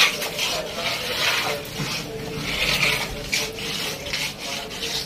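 Long-handled rubber floor squeegee scraping across a wet concrete floor and pushing standing rainwater, in repeated splashing strokes about one a second.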